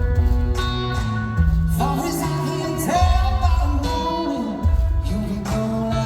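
Rock band playing live, with heavy guitar and drums and a voice singing in from about two seconds in.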